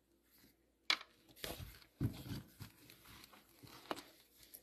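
A stack of plastic-sleeved baseball cards being handled and squared up in the hands: a sharp click about a second in, then several short crinkling, scraping rustles of plastic and card.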